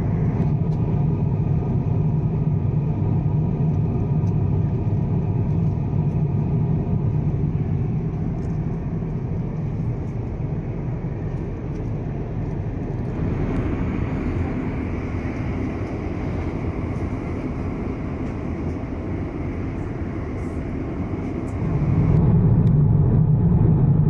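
Steady in-flight cabin drone of an Airbus A350-900, the hum of engines and rushing airflow heard inside the cabin. The drone shifts in tone about halfway through and grows louder near the end.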